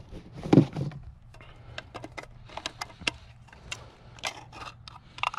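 12-gauge shotgun shells being loaded by hand into an FD12 box magazine: a string of irregular clicks and snaps as each shell is pressed in.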